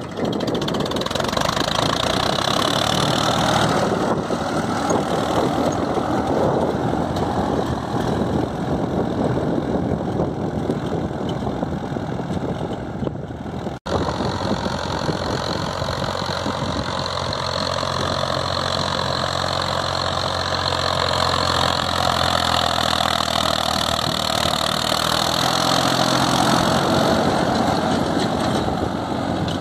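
1989 Massey Ferguson 1035 tractor's three-cylinder diesel engine running steadily under load while pulling a tine cultivator through ploughed soil, with one brief dropout about halfway through.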